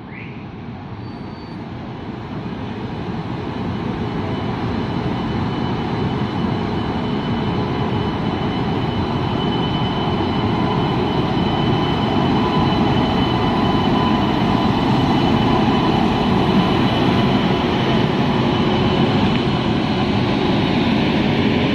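Electric express train hauled by a WAP-7 locomotive pulling out and gathering speed, with rolling wheel and coach noise. The sound grows steadily louder over the first twelve seconds or so, then holds, with a faint steady whine above the rumble.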